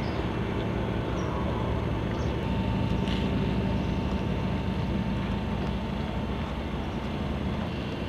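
Steady low engine drone of boats motoring on the harbour, an even rumble with no sharp events.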